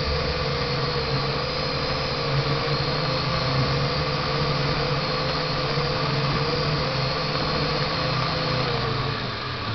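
Quadcopter's electric motors and propellers whining steadily, heard from a camera mounted on the craft, the pitch wavering a little as the throttle changes.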